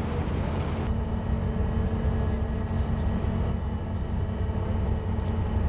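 Steady low engine rumble, with a faint high-pitched hum that joins about a second in.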